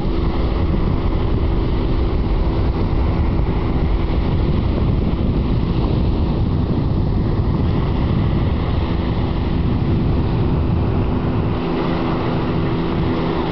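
Wind buffeting the microphone in a steady low rumble, over small waves washing onto the beach.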